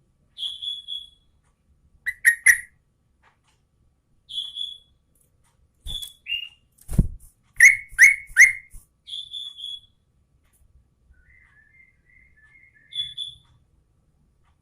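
Yellow-vented bulbul (trucukan) singing in separate short phrases: clear whistled notes alternating with quick runs of sharp chirps, the loudest a run of three chirps about eight seconds in.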